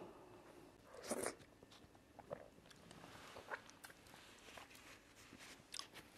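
Close-miked mouth sounds of eating cocoyam fufu and ofe nsala soup by hand: soft chewing with scattered small wet clicks and smacks, one louder about a second in.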